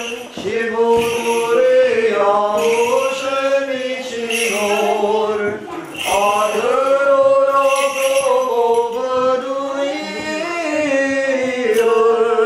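Unaccompanied Orthodox liturgical chant by male voices, long held and slowly gliding notes sung in a church.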